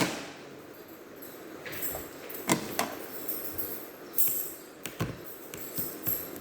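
Irregular sharp clicks and taps with short scraping rubs: tools and plastic and metal parts being handled while an HP x360 laptop is taken apart.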